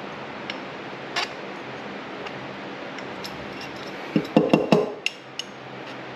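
Small metal parts of an RB26 individual-throttle-body linkage clinking and clicking as they are handled and shifted into alignment: a single click about a second in, then a quick run of clinks about four seconds in.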